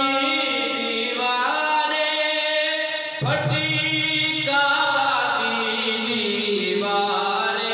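Devotional vocal chanting of a manqabat recitation, with long held notes that glide in pitch.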